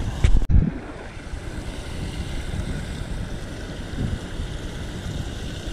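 Steady rush of water spilling over a small concrete canal spillway, with wind buffeting the microphone, loudest in a short gust just after the start.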